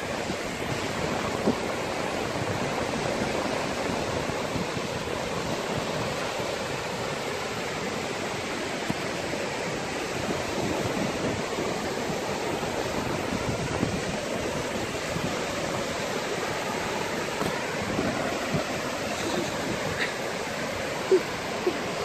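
Sea surf washing onto a sandy shore: a steady, even hiss of breaking waves, with a couple of brief knocks near the end.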